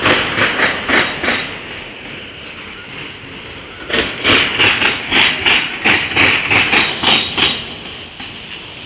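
Wheels of a passing CSX autorack freight train clattering over the rail joints: a quick run of clicks at the start, a quieter rolling rumble, then a second run of clicks from about four seconds in.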